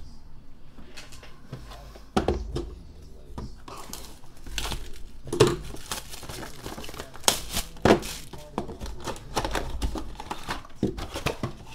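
Cardboard card box and its paper insert being opened and handled, giving crinkling rustles and a run of sharp taps and knocks.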